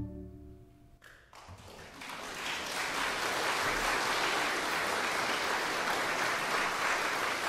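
An organ's final chord cuts off and its echo dies away in the room; then audience applause builds from about a second and a half in and continues steadily.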